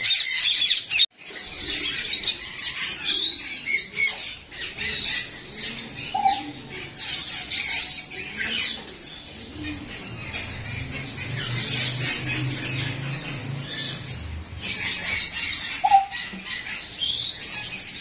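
Many ringneck parakeets squawking and chattering in an aviary, calls overlapping one after another. A low steady hum sits under the calls in the middle stretch.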